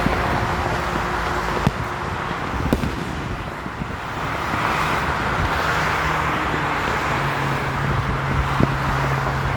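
Steady freeway traffic noise with a low engine hum, and a few sharp fireworks pops scattered through it.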